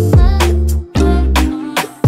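Background music with a steady beat and deep, pitch-dropping bass drum hits.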